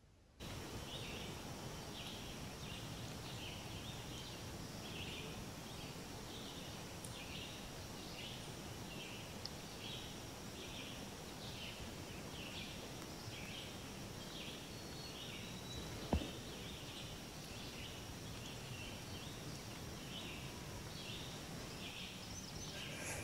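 Pond-side outdoor ambience: a steady hiss with a continuous run of short, high chirping calls from small animals, about two a second, over a faint steady high whine. One sharp click about 16 seconds in, and a few quick ticks near the end.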